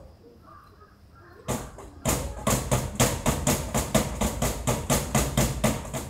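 A fast, even series of sharp knocks or clicks, about five or six a second, starting about two seconds in after a single knock.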